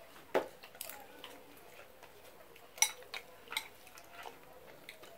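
Spoons clinking and scraping against bowls during a meal: a few scattered sharp clicks, the loudest about three seconds in.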